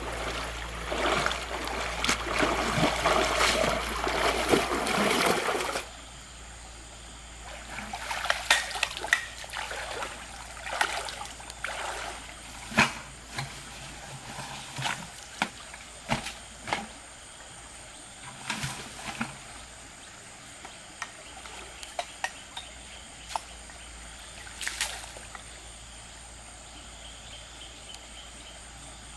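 Water splashing and sloshing for about the first six seconds, then cutting off abruptly. After that, scattered small splashes and drips.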